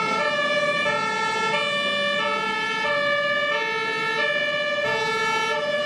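Two-tone emergency siren of an airport fire truck, switching back and forth between a high and a low note about every two-thirds of a second.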